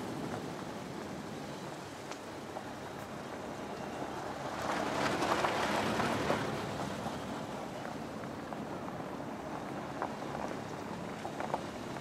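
Rushing, crackling noise of a vehicle driving across a grassy field, heard from on board. It swells for a couple of seconds around the middle, with a few light knocks near the end.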